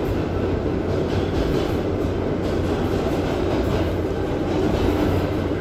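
Steady rumble and rattle of a New York City #7 subway train, heard from inside the car.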